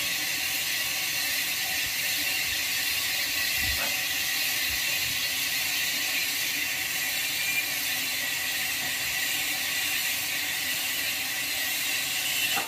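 Steady high-pitched hiss, with one faint knock about four seconds in.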